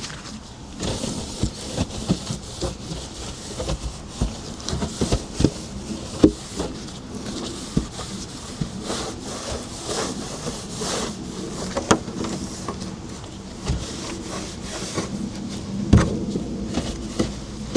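Scrubbing and wiping on a refrigerator's surfaces during cleaning: a rubbing, scrubbing noise broken by frequent irregular light knocks and clatters.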